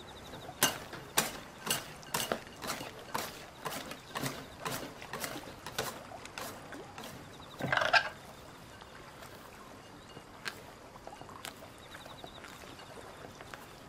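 Baking paper crackling and crinkling as it is peeled away from a set mousse loaf: a run of sharp crackles, about two a second, then a louder rustle about eight seconds in, with only a couple of faint clicks after that.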